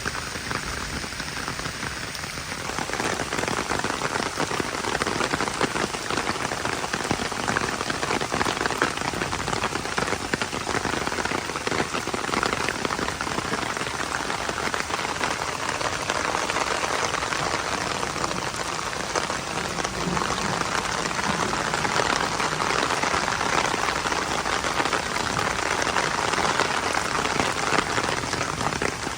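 Heavy rain falling steadily, a dense hiss of drops striking a surface, growing a little louder a few seconds in.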